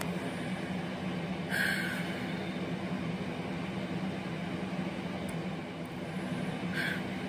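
Steady low room hum, with two brief breaths, one about a second and a half in and one near the end.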